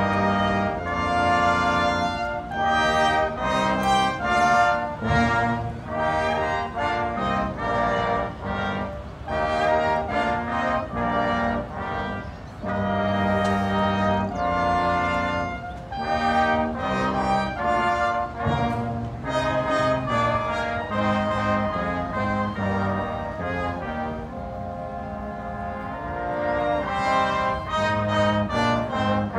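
Youth symphony orchestra playing live, with the brass section prominent over the strings in sustained chords and moving lines. The music softens a little about 24 seconds in before swelling again.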